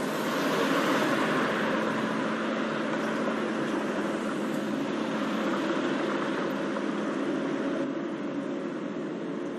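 Steady city traffic noise: a continuous rush of passing cars with a faint low hum, loudest about a second in and easing slightly near the end.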